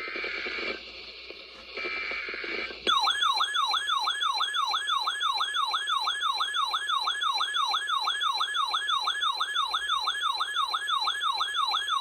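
Emergency Alert System SAME header: short bursts of buzzy two-tone digital data, about a second each, the last one ending around 3 s in. An electronic attention signal then starts and keeps repeating a fast, siren-like falling sweep, about three sweeps a second, announcing the next alert.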